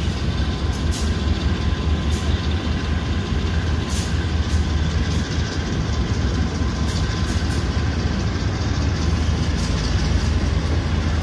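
Several GE AC44i diesel-electric locomotives running past close by, their engines making a steady deep drone with a faint steady whine above it. A few sharp clicks come from the wheels on the rails.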